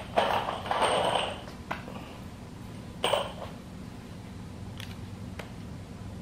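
Handling noise as a wooden workbench frame is held and positioned for bolting: scraping and rustling through the first second or so and again about three seconds in, with a few light clicks, over a low steady hum.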